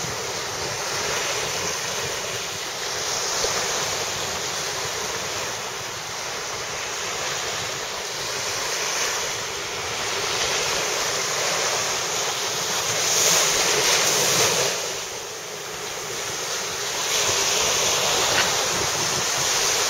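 Ocean surf washing and breaking on a beach in slow, rising and falling surges, with wind buffeting the microphone. The surf swells loudest about two-thirds of the way through, then briefly eases.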